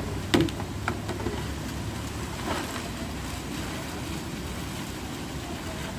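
Steady low rumbling outdoor noise, with a sharp knock about a third of a second in and a lighter one about a second in.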